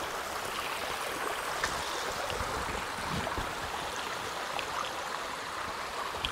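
Shallow rocky stream running over stones, a steady babble of water.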